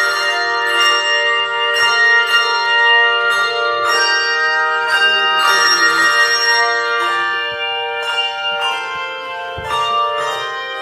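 Handbell choir playing a piece: chords of struck bells ringing on and overlapping, with new notes sounded about every half second to a second.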